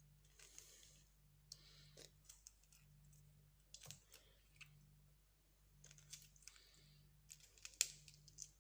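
Faint scraping and light clicks of a spoon scooping the flesh out of a halved lemon into a glass.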